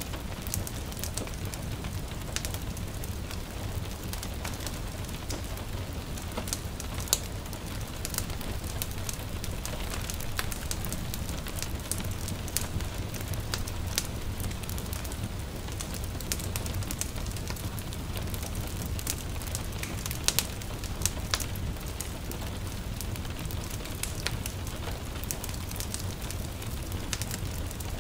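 Wood fire crackling with sharp, irregular pops over the steady patter of light rain and a low rumble.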